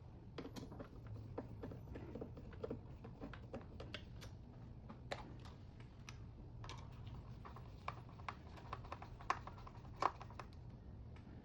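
Faint, irregular light clicks and taps of a plastic tail light lens and its screws being handled and fitted, with two sharper clicks in the second half.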